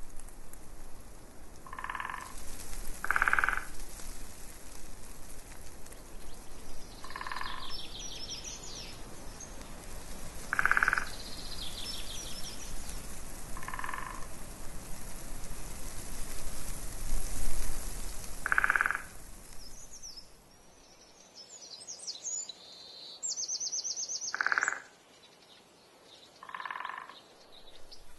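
A frog croaking in single short calls every few seconds, about eight in all, with small birds twittering high in between.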